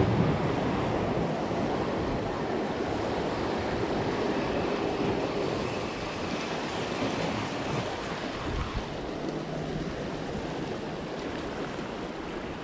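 Ocean surf washing and breaking over jetty rocks, a steady rushing that eases slightly over the seconds.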